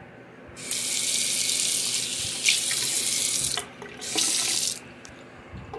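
Bathroom faucet turned on, its stream of water splashing into the sink basin for about three seconds. It is shut off, then run again briefly for under a second, with a few small knocks from the handles.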